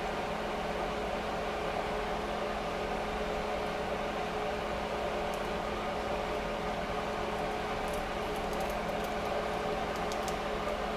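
Steady whirring hum of a running appliance fan or motor, even throughout, with a few faint light clicks near the end.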